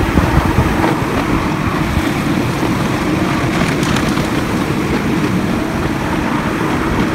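Miniature railway train rolling along its track, a steady rumble of the moving ride with wind buffeting the microphone.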